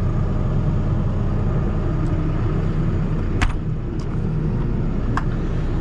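Steady low drone of the motorhome's running engine, with one sharp click about three and a half seconds in and a few lighter clicks around it from the storage-compartment doors and their latches being handled.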